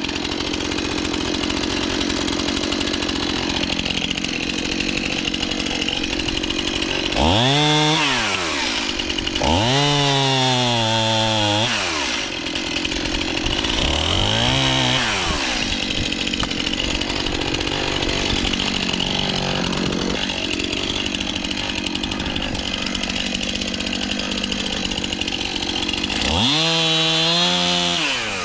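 Chainsaw cutting into a tree, running steadily with its pitch climbing and dropping back four times as it revs.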